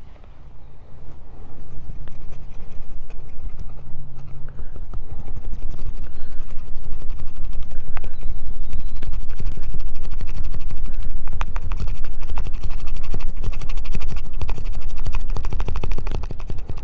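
Scandi-grind Mora bushcraft knife shaving feather curls off a stick of wood in rapid scraping strokes. The strokes start softly and grow loud and dense after the first couple of seconds.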